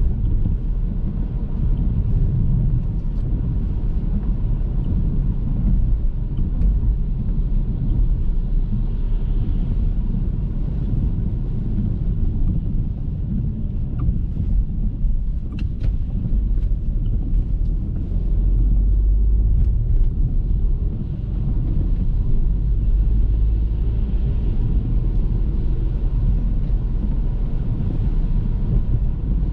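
Car driving along a road: a steady low rumble of tyre and engine noise that swells and eases slightly, with a few faint clicks in the middle.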